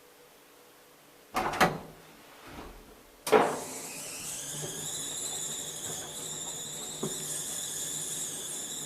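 KONE traction elevator setting off: two knocks about a second and a half in, a loud clunk a little past three seconds, then a steady high whine of the car travelling, its tone rising at first as it gets under way.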